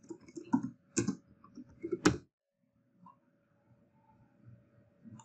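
Typing on a computer keyboard: a quick run of key clicks over the first two seconds, two of them sharper, then only a faint steady hum and a soft click near the end.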